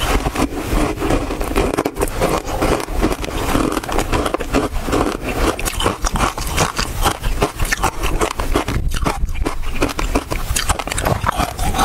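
Ice frozen with basil seeds being crunched and chewed: a dense, continuous run of sharp cracks and crackles as the ice is bitten and ground between the teeth.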